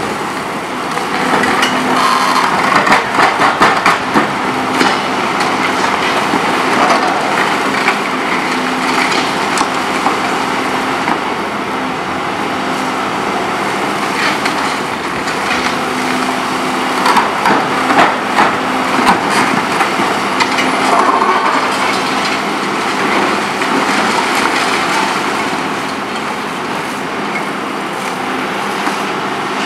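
Volvo EC 700B HR demolition excavator's diesel engine working steadily under hydraulic load while its Mantovanibenne CR 80R concrete shear crushes very hard, steel-reinforced concrete, with cracking and crunching of breaking concrete and falling rubble. The cracking comes in louder clusters about two to four seconds in and again about seventeen seconds in.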